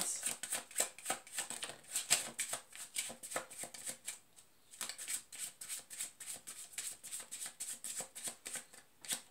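A deck of tarot cards being shuffled by hand: a fast run of soft papery card clicks, with a brief pause a little over four seconds in.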